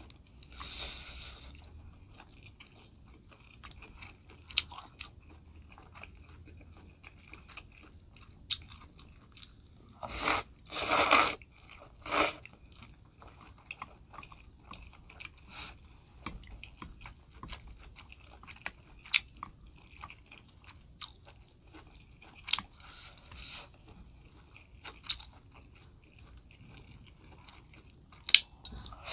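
Close-miked eating of spicy noodle soup: steady wet chewing with many small clicks, and three loud slurps of noodles in quick succession around the middle.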